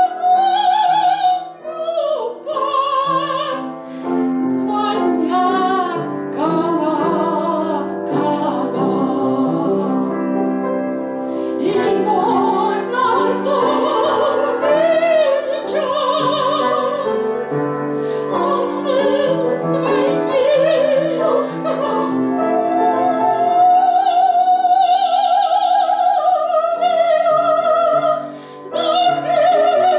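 A woman singing in a classical, operatic style with a wavering vibrato, accompanied by piano in a slow spiritual song. Near the end she holds one long high note for several seconds.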